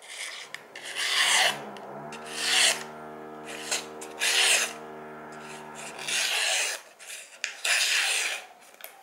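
Steel knife blade slicing through a paper sticky note, about five rasping cuts roughly a second apart. A steady low hum sounds underneath in the middle stretch.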